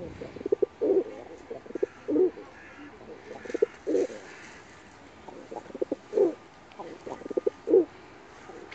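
Pigeon cooing, a phrase repeated every second or two: a few quick short notes followed by a longer, low coo.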